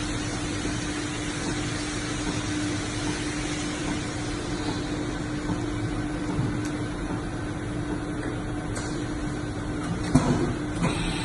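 Lagun L-1000 vertical machining center running behind its closed door: a steady hum with one constant tone. A short clatter comes near the end.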